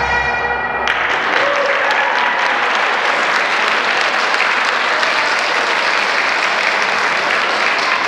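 Bagpipes of a pipe band stop together about a second in, and audience applause follows.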